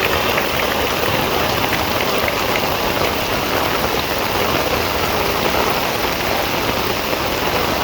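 Steady rain falling, a continuous hiss with scattered drop taps.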